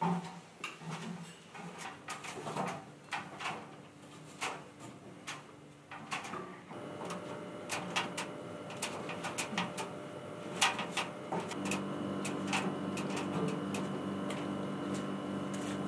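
Footsteps on the treads of a steep aluminium stair ladder as a person climbs down it, a string of irregular knocks and clanks. A steady hum joins in about halfway through.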